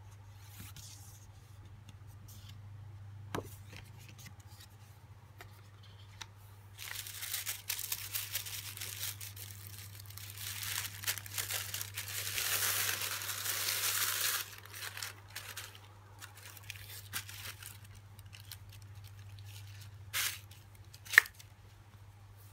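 Tissue paper rustling and crinkling as hands unfold it in a gift box, loudest for several seconds in the middle. A couple of sharp taps come near the end.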